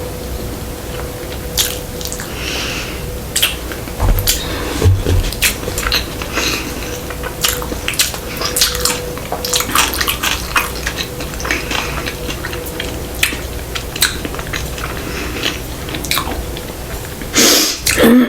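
Close-miked chewing of a sushi roll: wet mouth clicks and smacks, with a louder noisy burst near the end.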